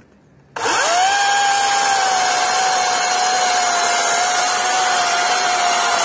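DeWalt battery-powered chainsaw switched on about half a second in, spinning up at once to a steady high whine as its chain cuts into a log.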